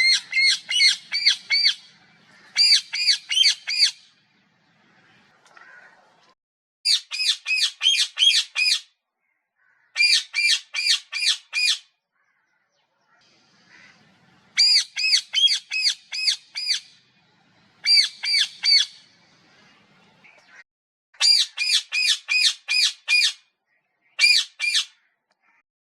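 Parrot squawking in bouts of shrill, rapidly repeated calls, about four to seven notes per bout, with short pauses between bouts.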